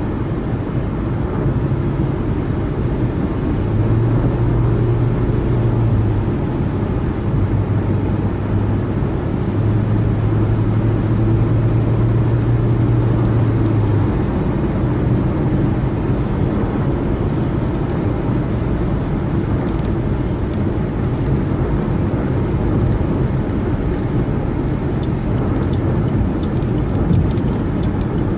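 Car driving at freeway speed: steady tyre and road noise, with a low steady engine or tyre drone for about the first half that then fades back into the road noise.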